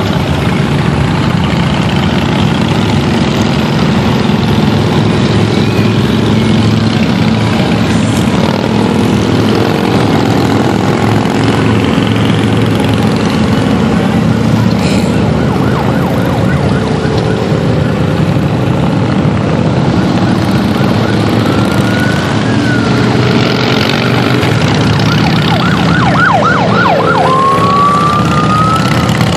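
A stream of cruiser motorcycles and trikes riding past one after another, their engines making a steady loud rumble. From about two thirds of the way in, a siren gives several rising and falling whoops over the engines.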